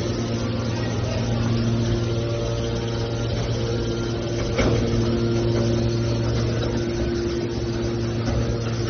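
Hydraulic scrap-metal press baler running with a steady machine hum, and a single knock about halfway through.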